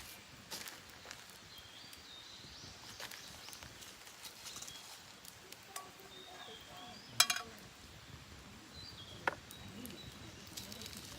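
Campfire crackling with scattered pops, while wild birds sing short high phrases. A sharp cluster of rapid crackles about seven seconds in, and a single pop a couple of seconds later.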